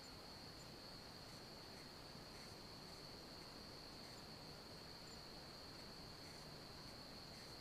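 Faint insect chorus: one steady, unbroken high-pitched trill over near silence.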